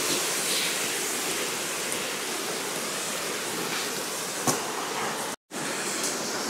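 Rushing mountain stream tumbling over rocks and small waterfalls, a steady rush of water. A single faint knock comes a little past four seconds in, and the sound cuts out for a moment about five seconds in.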